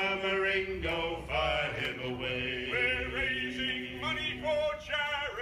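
Male voices singing a sea shanty unaccompanied, in long held notes.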